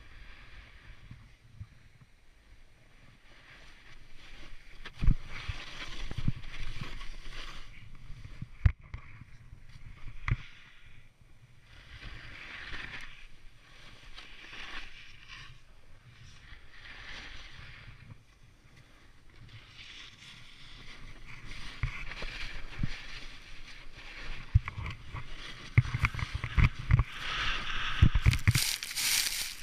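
Snowboard scraping and hissing over packed snow in a run of turns, the noise swelling and fading with each turn. A few sharp knocks break in, and the scraping grows louder and busier with many knocks near the end.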